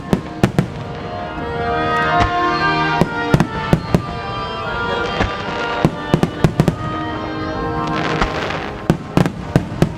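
Starmine fireworks going off: sharp shell reports in quick clusters every few seconds, over music with long held notes.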